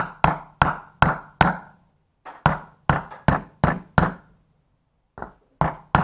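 Claw hammer striking a wooden block to drive a grease seal into a trailer wheel hub: sharp wooden knocks about three a second, in three runs with short pauses between them.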